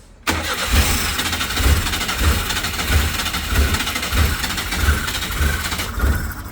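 Daewoo Labo mini-truck engine catching suddenly and running roughly, with uneven heavy low thumps about every half second to second. It is knocking and banging, the sign of its hard-starting, stalling fault, which is logged with a manifold absolute pressure circuit low code.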